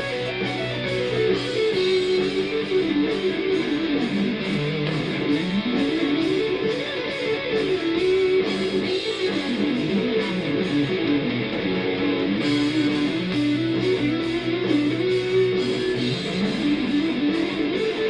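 Condor CLP1 electric guitar played through the Amplitube amp simulator, improvising melodic lead runs that climb and fall over and over above a backing track with a steady drum beat. It is heard through small PC speakers.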